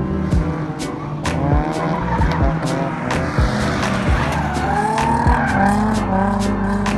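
Drift cars sliding through a corner: engines revving and tyres squealing. Background music plays underneath.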